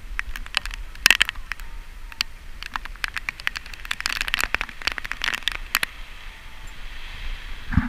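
Rain falling, with irregular sharp taps of drops striking close to the microphone over a low wind rumble.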